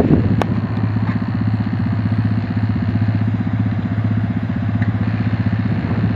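Kubota diesel engine of a hydraulic-drive swamp buggy running steadily with an even, rapid low chug.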